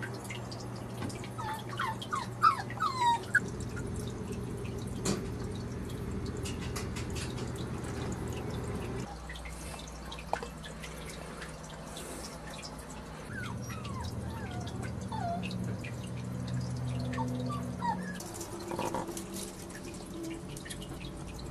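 Maltese puppies' short high squeaks and whimpers: a quick cluster of them about two seconds in and a few more later, over a steady low room hum.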